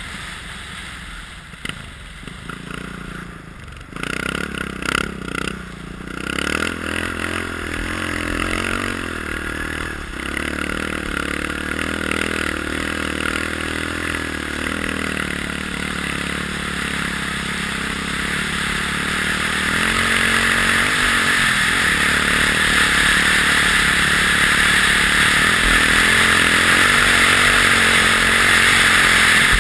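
Honda XR650R dirt bike's single-cylinder four-stroke engine, quieter for the first few seconds and then pulling hard as the bike speeds over snow. Wind rushes over the helmet microphone, growing louder from about two-thirds through as speed builds.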